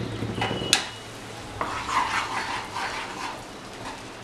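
Wooden spatula knocking twice against a nonstick frying pan, then stirring and scraping through a thick tomato and vegetable sauce in repeated strokes, over a light sizzle from the pan on the heat.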